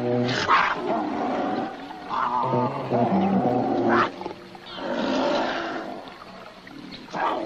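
A cougar and a bear snarling and growling at each other in a string of short, harsh calls, with a longer raspy snarl about five seconds in.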